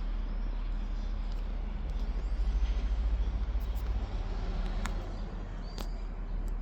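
A motor vehicle's engine running close by: a low rumble that swells and throbs quickly for a couple of seconds before settling, with two sharp clicks near the end.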